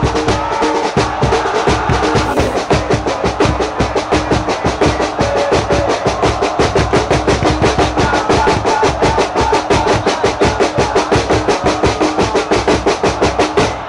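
Football supporters' drums and plastic hand clappers beating a fast, even rhythm, with the crowd's chant held over it.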